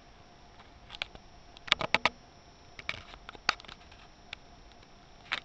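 A few sharp, brief clicks and taps of small hard objects, with a quick run of four about two seconds in, over a faint steady hum.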